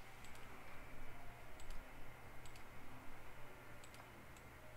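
A handful of faint computer clicks, several in quick pairs, from the mouse and keyboard during 3D modelling work, over a low steady electrical hum.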